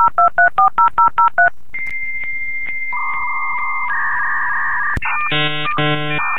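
Dial-up modem connecting: a quick run of touch-tone dialing beeps, then a steady high answer tone, a held two-tone note, and about five seconds in the pulsing tones of the handshake start.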